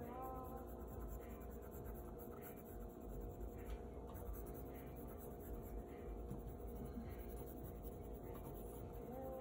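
Graphite pencil scratching on sketchbook paper in short, repeated shading strokes.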